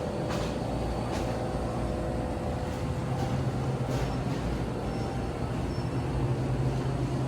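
Steady low rumble and hum of a busy indoor space, with a few faint ticks.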